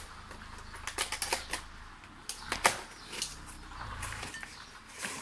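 Cardboard mailing box being unstrapped and opened by hand: the plastic packing strap slides off and the cardboard flaps rub and scrape, giving an irregular run of sharp clicks and rustles, the sharpest about two and a half seconds in.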